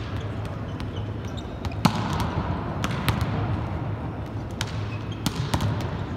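Volleyballs being spiked and slapping off the court floor in a large indoor arena: a series of sharp, irregular smacks, with the strongest ones bunched through the middle, over a steady low hum.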